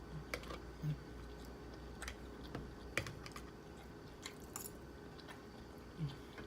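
Close-miked chewing of a crispy fried pork lumpia: scattered soft crunches and mouth clicks.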